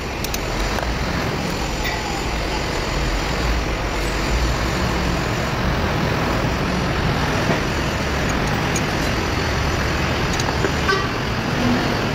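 Steady low vehicle rumble in the background, with a few faint metallic clicks from hand tools on the engine's rocker arms.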